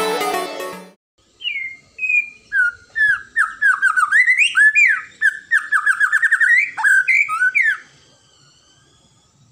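The last second of electronic intro music cuts off. After a short pause a white-rumped shama (murai batu) sings a fast run of short, clear whistled notes that rise and fall in pitch for about six seconds, then stops.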